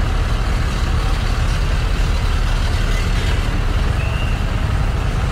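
Harley-Davidson Street Rod 750's V-twin engine running at low speed in stop-and-go traffic, mixed with a diesel truck's engine close alongside. A steady, dense engine and traffic noise.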